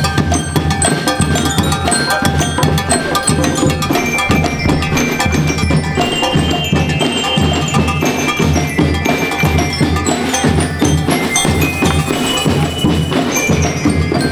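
School drum-and-bugle marching band (banda de guerra) playing a piece: bass and snare drums beating a dense, steady rhythm under ringing metallic tones.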